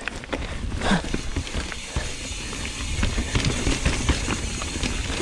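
Mountain bike rolling fast over a rocky dirt trail: tyres crunching on dirt and stones, with many irregular small knocks and rattles from the bike over the rocks and a steady low rumble.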